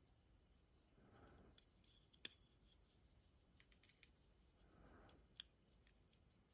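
Faint, scattered metallic clicks and ticks of small lock pins and parts being handled as a Zeiss Ikon SK6 lock is taken apart, with a sharper click a little over two seconds in and another about five and a half seconds in.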